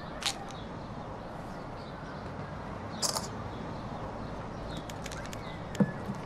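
Steady background ambience broken by three short handling noises: a click just after the start, a brief high rattle about three seconds in, and a dull thump near the end, the loudest of them.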